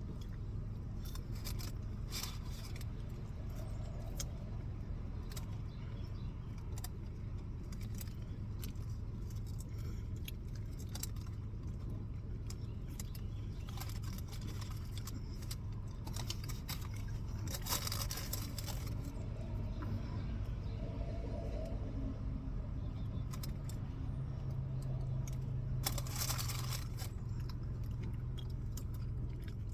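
Small clicks, clinks and rustles of food, packaging and utensils being handled during a meal, over a steady low hum. Two longer, louder rustles come about 18 and 26 seconds in.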